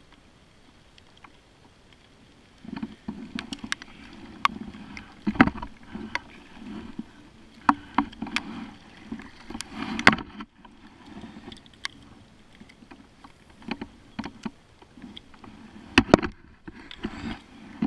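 Kayak paddling: double-bladed paddle strokes splashing in the water, with sharp clacks and knocks of the paddle against the plastic hull of a Lifetime sit-on-top kayak. The strokes begin a few seconds in and come irregularly.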